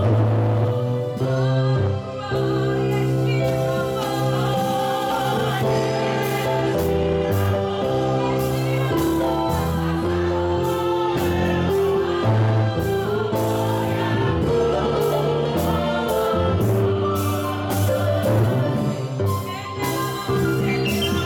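Gospel music: a choir singing over instrumental accompaniment with a strong bass line. A beat of sharp percussion strokes comes in about six seconds in.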